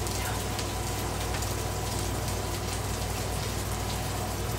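Steady sizzle of ground beef and onions frying on a Blackstone flat-top griddle, with a low steady hum underneath.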